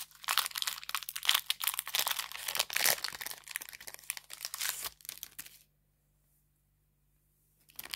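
A hockey card pack's wrapper being torn open and crinkled, a dense run of crackling that stops abruptly a little over halfway through.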